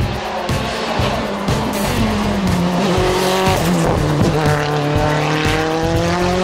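Lancia Delta Evo hill-climb race car passing at full effort. Its engine note drops about two seconds in, then climbs steadily as the car accelerates out of the bend.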